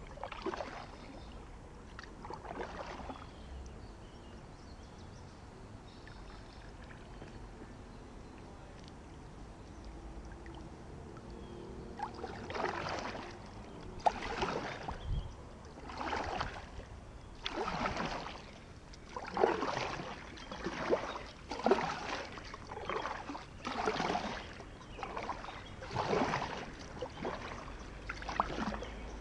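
Double-bladed kayak paddle stroking through calm water, blade swishes alternating side to side. After two strokes near the start there is a quieter glide, then steady strokes about once a second from roughly halfway through, with one sharp click among them.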